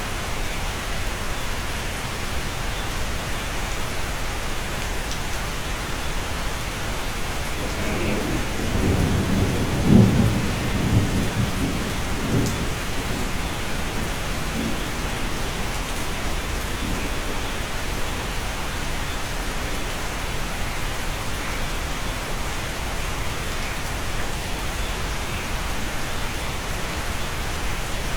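Steady rain heard from inside a cabin, with a roll of thunder rumbling up about eight seconds in, loudest around ten seconds, and dying away a few seconds later.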